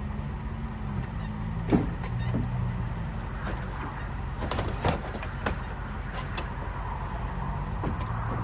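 Small vehicle engine running steadily at a low idle, with a few short knocks and clunks over it.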